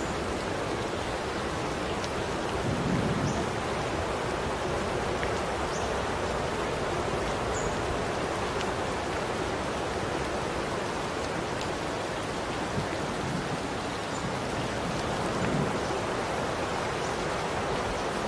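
Steady rain falling, an even hiss with no breaks, with a few faint short high chirps scattered through it.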